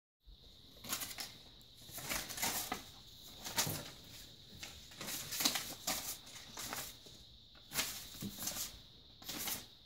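Paper cutouts rustling and flapping as they are handled and waved about, in irregular bursts about a second apart.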